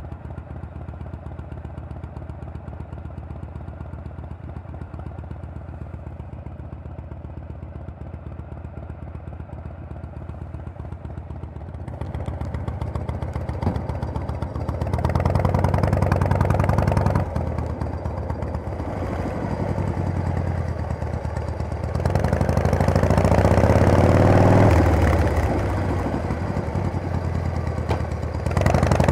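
Harley-Davidson Panhead V-twin engine running steadily and quietly for about twelve seconds. It then gets louder, its pitch climbing and dropping back several times as the chopper accelerates.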